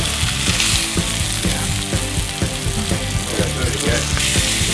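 Two rib-eye steaks sizzling in hot avocado oil in a cast-iron skillet as they are turned over, the final high-heat sear of a reverse sear. Background music plays underneath.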